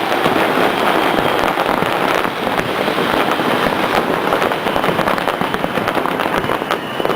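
Fireworks display going off densely: rapid cracks and bangs following one another so closely that they merge into a continuous crackling wash.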